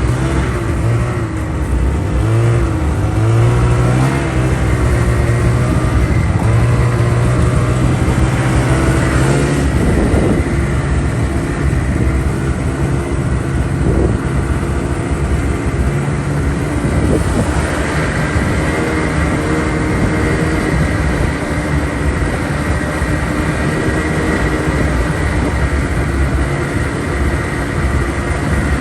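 A motor vehicle engine running steadily, its pitch wavering up and down during the first ten seconds, then settling into a steady hum with a thin high whine that starts a little past halfway.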